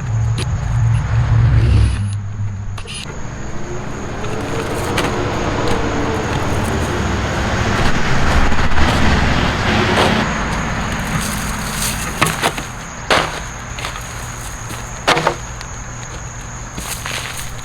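Road traffic: a vehicle running and passing by, swelling to its loudest about halfway through. Several sharp knocks come later, about twelve, thirteen and fifteen seconds in.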